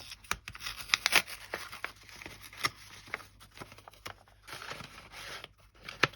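Plastic packaging crinkling and rustling, with many sharp clicks and taps, as a pack of cling stamps is unwrapped and handled.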